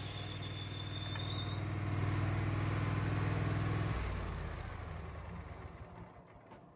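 Wood-Mizer LT15 sawmill's engine running steadily, then dying away over the last few seconds.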